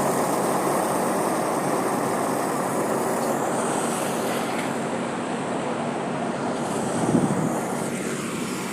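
Road-construction machinery running with a steady, noisy sound that slowly fades, with a brief louder swell about seven seconds in.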